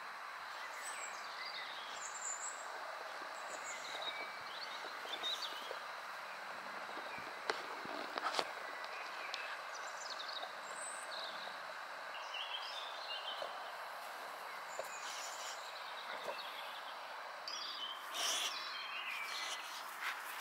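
Steady background noise with small birds chirping now and then, and a few faint knocks.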